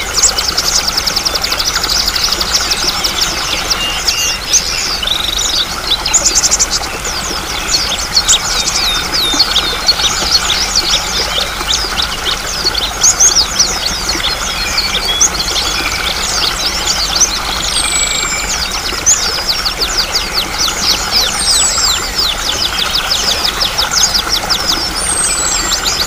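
Many small songbirds chirping and trilling rapidly and continuously over a steady rush of flowing water, with a few high, falling whistles in the second half.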